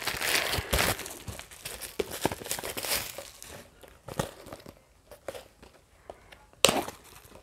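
Plastic parcel wrapping crinkling and rustling as it is unfolded and handled, with sharp crackles. It grows sparse and faint about four seconds in, with one more short rustle near the end.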